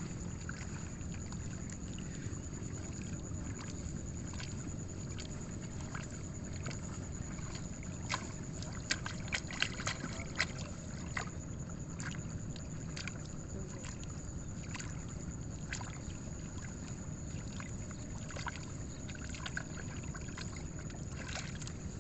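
Shallow muddy water sloshing and splashing as hands pull rice seedlings from a flooded nursery bed and swish the mud off their roots. A cluster of sharper splashes comes around the middle, over a steady low rumble.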